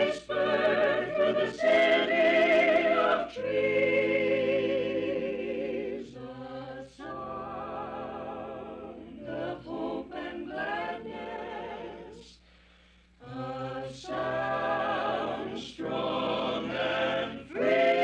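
Mixed vocal group of men and women singing a radio station jingle in sung phrases with short breaks; the singing drops away briefly about twelve seconds in, then resumes.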